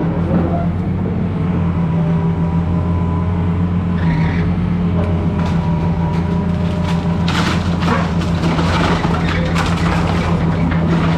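Excavator's diesel engine running steadily. From about seven seconds in come repeated cracks and crunches of building material being broken apart in demolition.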